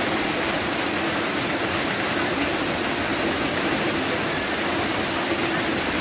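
Small waterfall pouring into a shallow rock pool: a steady, even rush of falling and splashing water.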